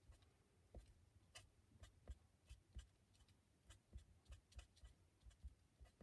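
Near silence with faint, irregular light taps and scratches of a colouring pen tip on card, a few a second, as small details are coloured in.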